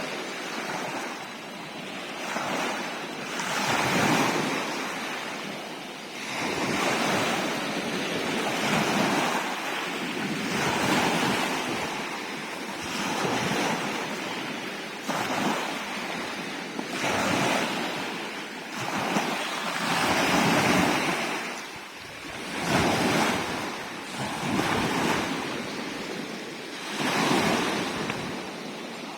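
Sea waves washing and surging, the rush of water swelling and falling back about every two seconds.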